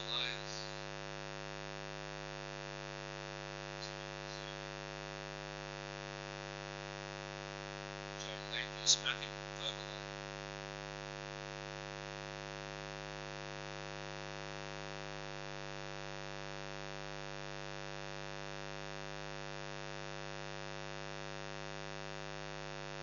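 Steady electrical mains hum with many evenly spaced overtones, running unchanged throughout. A brief cluster of high-pitched ticks about eight to ten seconds in is the loudest sound.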